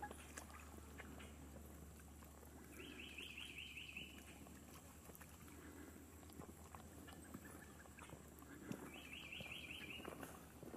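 Near-silent outdoor ambience with faint scattered clicks. Twice, about six seconds apart, a short, rapid series of high chirping notes lasting about a second.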